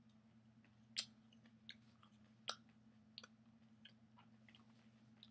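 A person chewing a fresh Trinidad Scorpion Moruga Red chili pod with his mouth closed: faint, scattered mouth clicks and crunches, the two sharpest about a second in and about two and a half seconds in.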